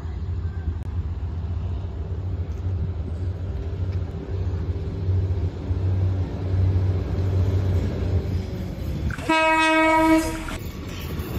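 Diesel railcar train approaching, its engine a low steady rumble that grows as it nears. Near the end comes one horn blast of about a second and a half, the loudest sound, and then the noise of the train drawing level rises.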